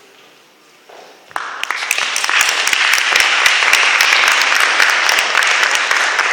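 Audience applause welcoming the performers onto the stage: the clapping breaks out about a second in and quickly builds to a loud, steady applause.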